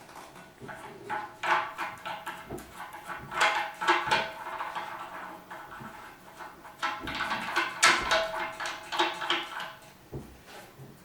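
Irregular clinks and knocks of faucet hardware being handled and fitted onto the sink, with short squeaky tones among them.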